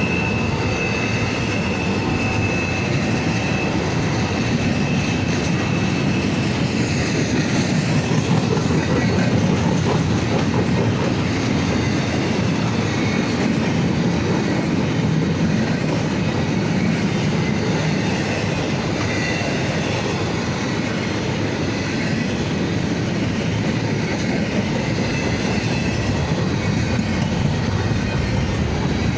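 Norfolk Southern freight train cars rolling past on the rails, a steady rumble with wheels clacking over the track. A thin, high wheel squeal fades out a few seconds in.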